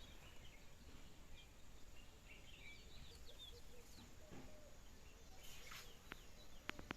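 Faint rural outdoor background with distant birds chirping, and a few sharp clicks near the end.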